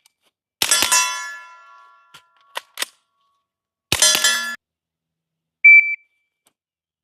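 9mm AR carbine fired through a modular titanium silencer in two quick strings of several shots, about half a second in and again around four seconds in, each followed by ringing steel targets. A few small clicks come between the strings, and a single shot-timer beep sounds near the end.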